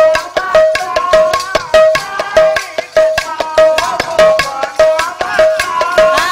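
Instrumental interlude of Odia Pala music: a barrel hand drum beats a fast, even rhythm under a melodic instrument that repeats one held note with a bending tune above it.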